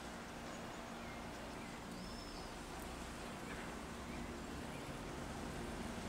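Faint, steady outdoor city ambience on a morning of fine rain: an even hiss with a low steady hum under it, and a few faint bird chirps, the first about two seconds in.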